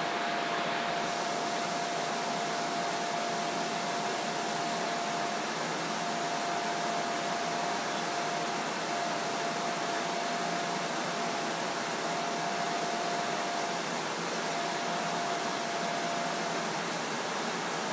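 Steady hum and hiss inside a city bus cabin as it sits in slow traffic, from its ventilation and engine, with a thin steady whine running through it that drops out briefly twice near the end.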